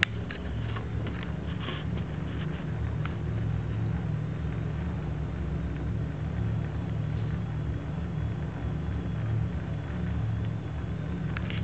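Steady low mechanical hum, with a few small clicks and taps in the first three seconds and again near the end.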